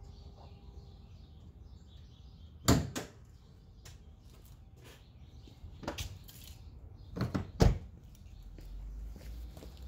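A few sharp knocks from the car's door being handled, the loudest near the end as it is shut.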